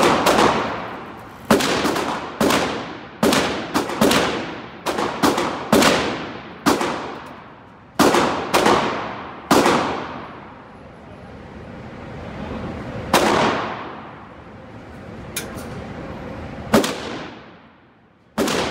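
Gunshots from several shooters on an indoor range, each with a long echoing tail. They come irregularly, often less than a second apart, through the first ten seconds or so, then stop briefly before a few more.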